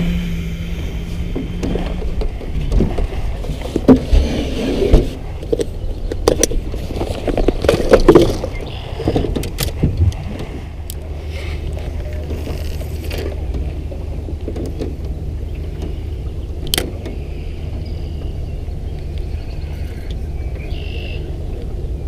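Handling noise in a small aluminium boat: irregular thumps, knocks and rubbing in the first half, loudest around four and eight seconds in, over a steady low rumble that continues alone afterwards, with one sharp click near the end.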